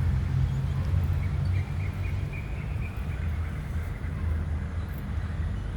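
Steady low outdoor rumble, with a faint wavering bird call a little over a second and a half in that lasts about two seconds.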